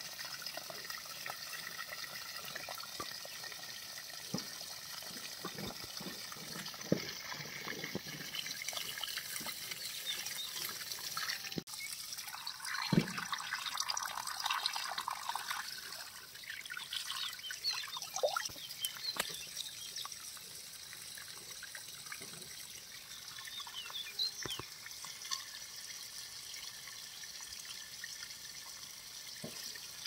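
Water poured over cleaned parrotfish in a clay bowl, splashing and trickling off the fish, heaviest in the middle, with scattered small clicks and one low knock.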